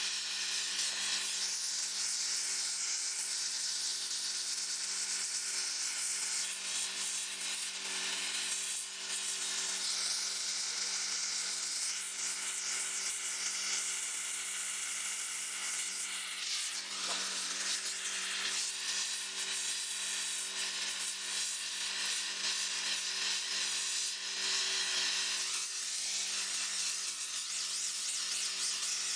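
Air-gas torch burning with a steady hissing rush as it heats a crucible of molten silver and a steel ingot mold, over a steady low hum.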